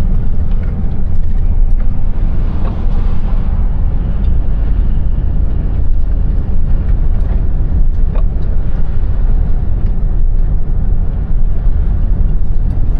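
Steady low rumble of a truck driving, heard inside the cab: engine and road noise with no let-up.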